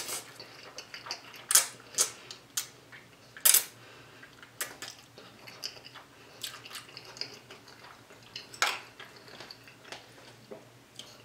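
Close-up eating sounds: a slurp of instant noodles at the start, then chewing with wet mouth smacks and sharp clicks scattered throughout, and light clinks of a fork against the plate.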